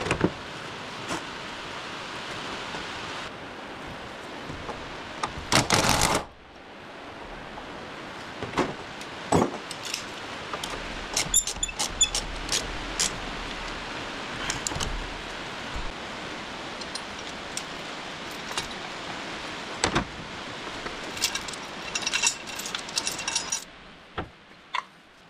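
Metal clinks, knocks and rattles of tools and mount hardware while an engine and transmission are worked into a car's engine bay and lined up with their mounts, with one brief loud burst about six seconds in.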